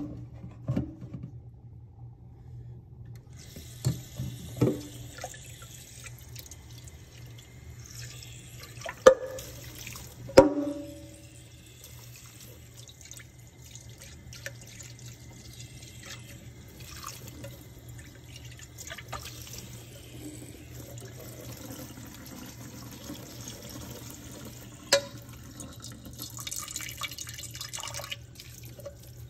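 Kitchen tap running water into a metal saucepan and over rice in a colander in a stainless steel sink, for rinsing the rice. The running water starts a few seconds in and stops near the end, and several sharp knocks come through it.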